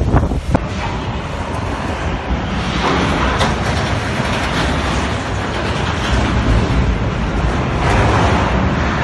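Loud rushing storm noise of wind and driven spray, swelling about three seconds in and again near the end.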